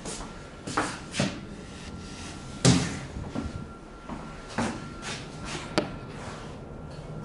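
About five sharp knocks and bumps inside a small metal-and-glass elevator cab, the loudest about two and a half seconds in, over a faint steady tone.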